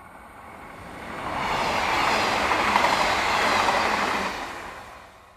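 Express train passing close by at speed, its wheels running over the rails. The sound swells about a second in, stays loud for a couple of seconds, then fades away near the end.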